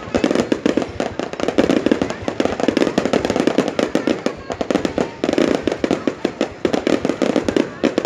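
Fireworks crackling in a dense, rapid stream of sharp pops, many per second, thinning briefly a little past the middle and picking up again.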